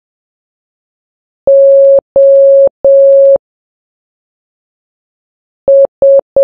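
Morse code practice tone, a single steady beep, keyed as three long dashes (the letter O), then a pause of about two seconds, then three short dots near the end.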